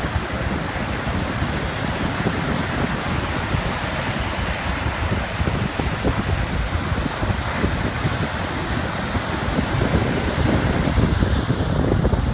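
Small ocean waves lapping on a beach, with wind rumbling on the microphone; it swells a little near the end.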